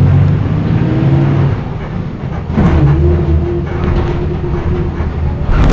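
Volksbus 17-210 city bus's diesel engine pulling under way, heard from inside the passenger cabin with road noise. The engine eases off briefly near the middle, then picks up again at a lower, steady pitch.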